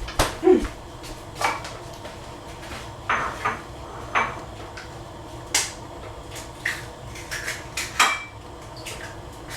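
Kitchen dishes and utensils clinking and knocking: a dozen or so irregular sharp taps and clinks, a few with a short ring, as bowls and eggs are handled for cooking.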